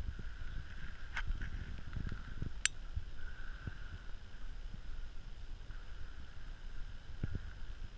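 Low, uneven rumble of wind and handling noise on a camera microphone, with two sharp clicks in the first three seconds.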